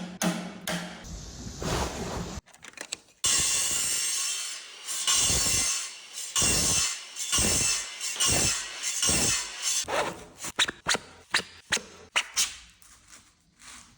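A hand tool rasping in slow back-and-forth strokes, about one a second, then a quick run of sharp taps near the end.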